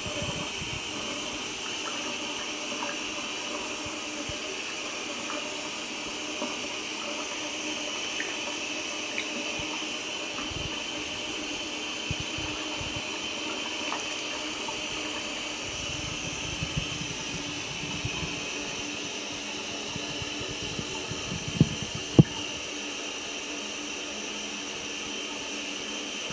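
Tap water running steadily into a bathtub and pouring over leather work boots as the tub fills. A few small clicks are scattered through it, and about four-fifths of the way in come two sharp knocks, about half a second apart.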